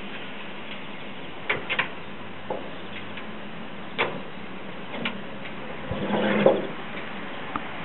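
Small engine of a drill rig's hydraulic power unit running steadily. A few sharp clicks and a louder clatter about six seconds in come as the unit is handled.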